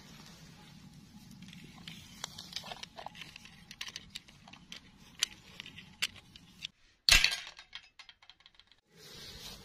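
Small plastic clicks and ticks as mini toy dolls and their clip-on plastic dresses are handled. About seven seconds in comes one loud clatter, followed briefly by small rattles, as of the dolls landing in a bowl.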